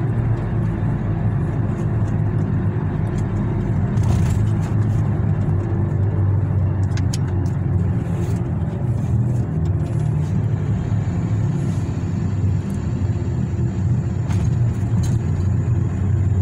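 Mitsubishi L200 pickup driving, heard from inside the cab: a steady low rumble of engine and road noise, with a few faint light clicks.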